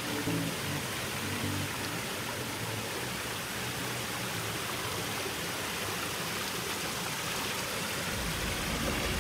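Steady rushing of water, an even roar with no distinct events. Background music fades out in the first couple of seconds and comes back near the end.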